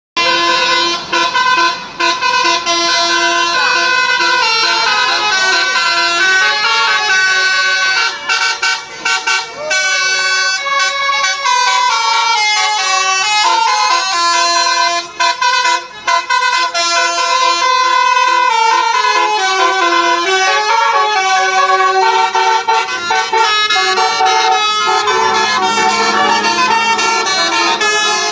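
Basuri telolet musical bus horns playing a melody: loud air-horn notes stepping up and down in pitch, several tones at once, with a few short breaks. A low drone sits under the horns near the end.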